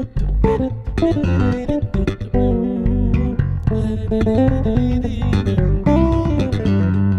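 Two basses playing an instrumental duet with plucked notes: one holds low notes while the other plays a moving melody higher up.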